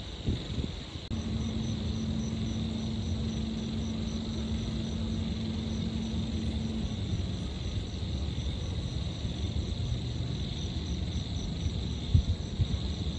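Night-time city ambience: a steady low rumble of distant traffic under the continuous high trilling of insects, with a faint regular pulsing chirp above it. A steady low hum comes in about a second in and stops about seven seconds in.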